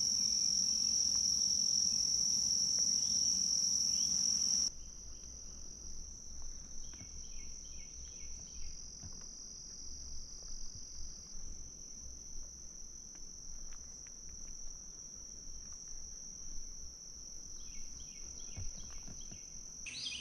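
Steady high-pitched chorus of crickets or similar insects trilling. About five seconds in, the level drops suddenly and the chorus carries on more faintly, while a short run of quick repeated chirping notes sounds twice over it.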